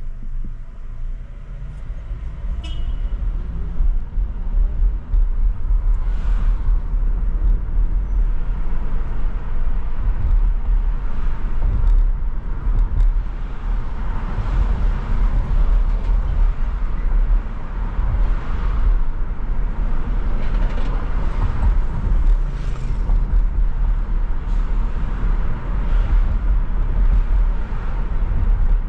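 Car driving on city streets: a steady low rumble of road and engine noise with surrounding traffic, growing louder over the first few seconds and then holding. A brief high squeal about two and a half seconds in.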